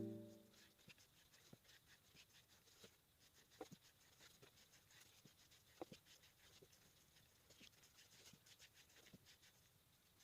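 Near silence: music fades out at the start, then only faint scattered small clicks and scratches.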